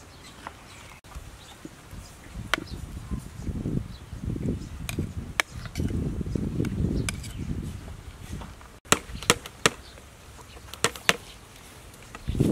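Grapes rolling off a plate and dropping into a bowl of cut fruit, a low rumble with scattered clicks. Then a cleaver blade strikes the lid of a small tin can in a series of sharp metallic knocks, punching it open; the loudest knock comes at the very end.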